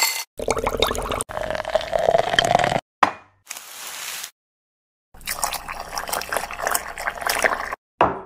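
Water poured into a glass teapot over loose tea leaves, the pitch of the filling rising slightly; a second pour follows a few seconds later. Glass clinks sharply at the start and again near the end.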